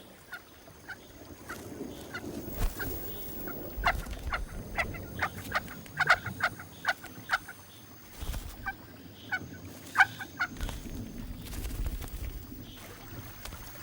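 Picathartes chicks begging at the nest: short, sharp peeping calls, about two a second and unevenly spaced, over a low background hum.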